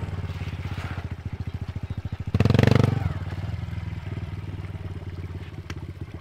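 Small pit bike's single-cylinder engine running at low revs with a fast, even beat. It gives a short, louder burst of throttle about two and a half seconds in, as the rider tries to pop the front wheel up for a wheelie.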